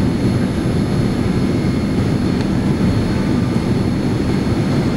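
Steady cabin noise inside a Boeing 787-9 descending to land: a low, even roar of the jet engines and air rushing past the fuselage, with a faint steady high-pitched whine above it.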